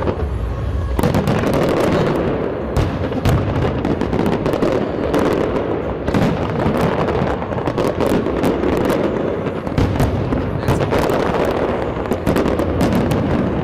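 A large fireworks display going off: many shell bursts and crackles overlapping in a dense, continuous barrage.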